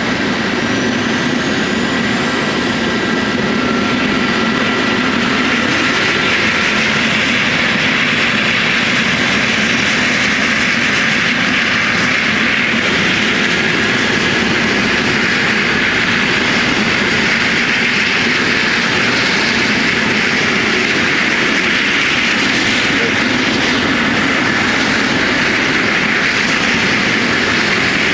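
Trauma helicopter's turbine engine and rotor running loudly and steadily at close range. A high turbine whine rises in pitch over the first several seconds.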